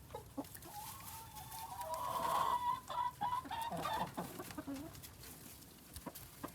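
Chickens clucking, with one long drawn-out call lasting a couple of seconds about a second in.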